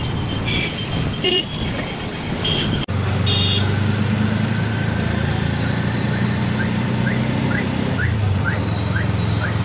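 Auto-rickshaw engine running, heard from inside the open cabin, with street traffic and several short horn honks in the first three seconds. After a break near 3 s the engine settles into a steady drone, its pitch shifting near 8 s.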